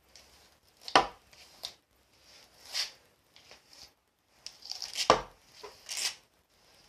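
Hairbrush strokes rasping through long hair, a quick brushing sound about once a second. Two sharp knocks about a second in and again around five seconds in stand out as the loudest sounds.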